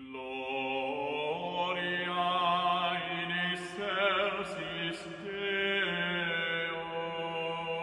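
Slow sung chant over a held low drone, the voices sustaining long wavering notes and moving slowly between pitches.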